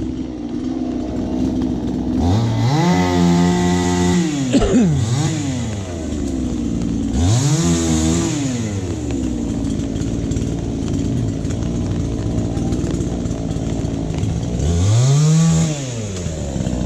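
Two-stroke chainsaw running at idle and revved up three times, each rev climbing and dropping back within a second or two.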